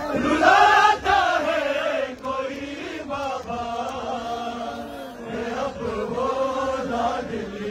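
A group of men chanting a Shia mourning noha in Urdu, with lead reciters singing into handheld microphones and the surrounding men chanting with them. Loudest in the first second.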